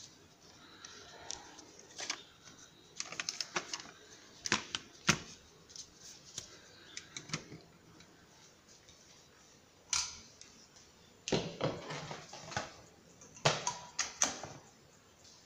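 Irregular clicks, taps and scraping from gloved hands handling the opened DVR's metal chassis, cables and connectors. The clicks come in scattered groups, with a sharp single click about ten seconds in and denser runs near the end.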